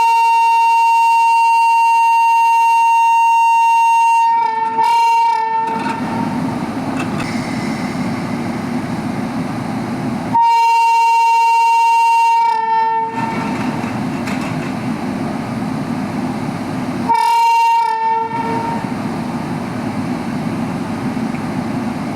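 Shrill Indian locomotive horn: one long steady blast, then a few quick stuttering toots about four seconds in. A second long blast starts about ten seconds in and a shorter one comes near seventeen seconds, over the steady rumble of a train running.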